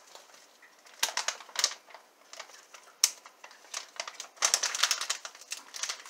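Plastic pouch of precooked pork sausage crumbles crinkling and rustling in short bursts of sharp clicks as it is handled, with a denser flurry of crackles about four and a half seconds in.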